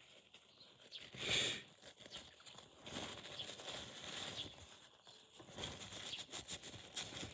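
Irregular rubbing and scraping on the small plastic parts of a disassembled Logitech M185 mouse as they are cleaned, with light clicks and one louder scrape about a second in.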